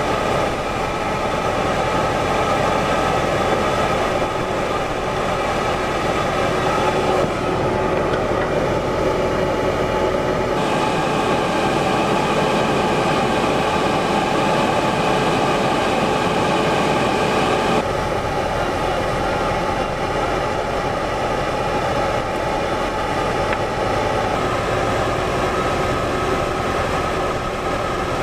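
AAV7 amphibious assault vehicle swimming at sea: a steady diesel engine and drive drone mixed with rushing water. The tone shifts abruptly a few times.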